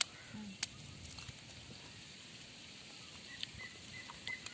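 Quiet outdoor background with a few faint, sharp clicks of peanut shells cracking and rattling as a baby monkey eats groundnuts.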